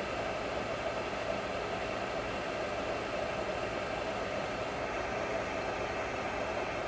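TOS horizontal milling machine running with its knee travelling vertically under power feed: a steady mechanical whir from the feed drive and motors, even throughout.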